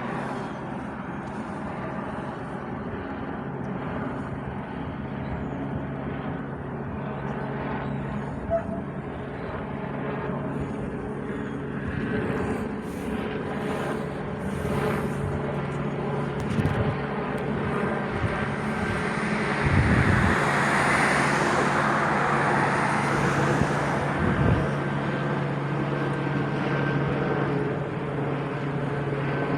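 Police helicopter overhead, a steady drone that grows louder a little past the middle.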